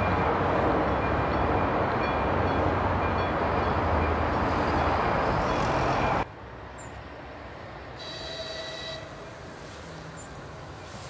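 Regio Nova class 814 diesel railcar running on the track: a loud, steady rumble of engine and wheels with a low hum, cut off abruptly about six seconds in. After that it is much quieter, and about two seconds later a brief, distant train horn sounds.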